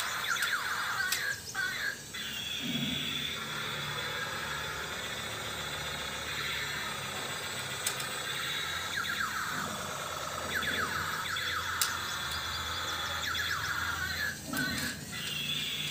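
Battery-powered 2-in-1 convertible tank/fighter-jet toy playing its electronic sound effects through a small speaker: falling, whistle-like sweeps that repeat every few seconds, over the steady whir of its drive motor as it rolls and unfolds into a jet.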